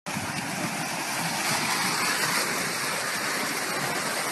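Steady rush of running water, cutting in suddenly at the start.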